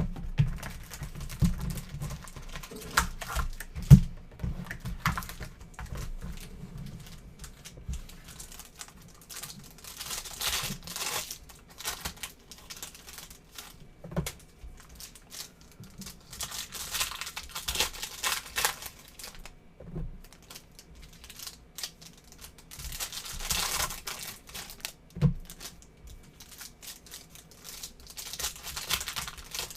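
Plastic shrink wrap crinkling and tearing as a trading-card box is unwrapped and its packs opened, in repeated spells, with a few light knocks of cardboard on the table.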